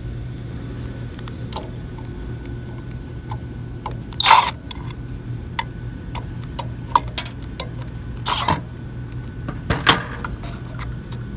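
Cordless impact driver run in three short bursts to back out the screws on a vent motor's start-capacitor cover, the first and loudest about four seconds in, with clicks and rattles of the metal cover being handled. A steady low hum runs underneath.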